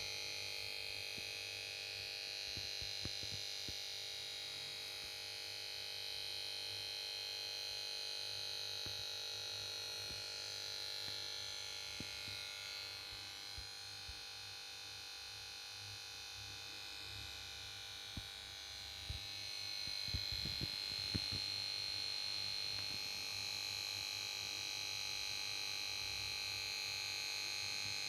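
Samsung PS42A410C1XBT plasma TV's power board giving off a steady high-pitched electrical whine of several tones, the fault noise of a set that won't start. A few faint clicks come about two-thirds of the way through.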